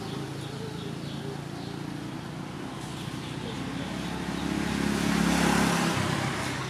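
A motor vehicle passing, a steady low rumble that swells to its loudest about five seconds in and then fades.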